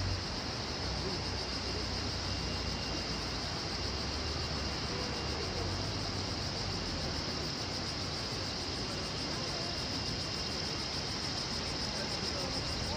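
Waterfall: a steady, unbroken rush of falling water with a constant high hiss over it.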